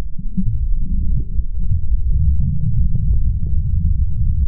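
Shallow beach surf surging over a sandy bottom, heard underwater: a loud, muffled low rumble with faint scattered ticks.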